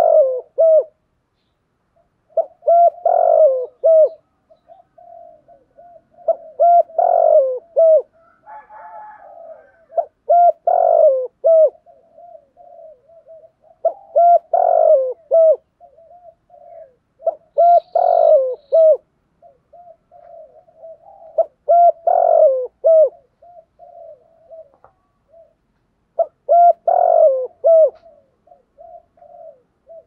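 Spotted dove cooing: the same short phrase of throaty coos repeats about every four seconds, with softer single coos in between.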